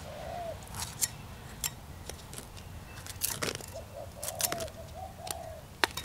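Scattered light clicks and scrapes as a foam backer rod is pushed down into a joint between sandstone pavers with a steel scraper, with a bird cooing in short, bowed phrases over the second half.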